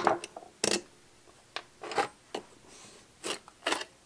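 Irregular clicks, taps and light knocks of the cast metal tachometer housing and base plate of a Ford 5000 tractor's instrument cluster being handled and lifted apart, about seven sharp sounds in all, some with a short metallic ring.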